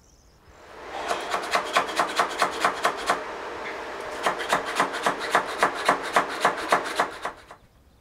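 Gritty scraping of a tool worked through damp silicon carbide and water-glass mix as it is packed into a crucible mold. The strokes come quickly and evenly, about five a second, in two runs with a short pause between them.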